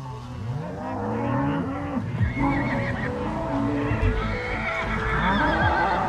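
Cattle bawling from the herd, low rising calls, with music coming in about two seconds in and carrying on over them.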